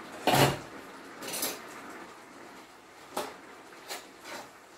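Stainless-steel pots and utensils clanking on a stovetop. There is one loud clank near the start, another a second later, then three lighter clicks.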